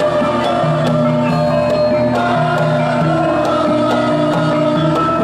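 Javanese gamelan playing: bronze bonang kettle gongs struck in a quick regular pattern over ringing metallophone tones and kendang hand drums, accompanying a choir singing a devotional song.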